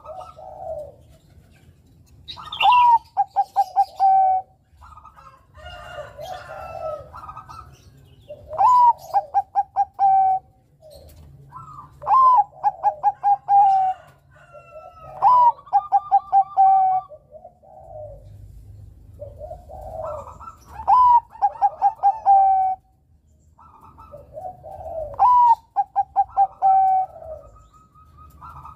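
Bangkok-type zebra dove (perkutut) singing its cooing song over and over, a phrase every few seconds. Each phrase is a short rising note followed by a quick run of clipped repeated notes, with softer coos between the phrases.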